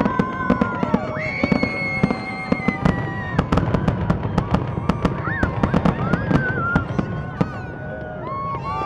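Fireworks going off in a rapid barrage of many bangs and crackles, with held, whistle-like tones over them; the barrage thins out near the end.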